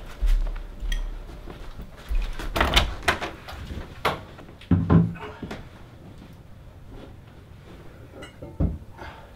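A door being handled: a run of knocks and clicks, with a heavy thump about five seconds in and another knock near the end.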